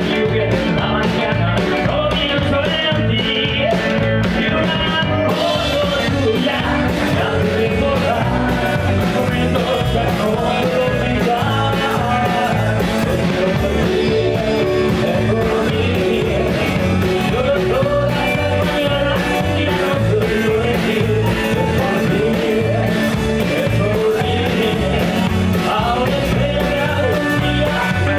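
Live rock and roll band playing a song: electric guitar, drums and cymbals over a steady beat, with a male voice singing. The sound grows brighter about five seconds in.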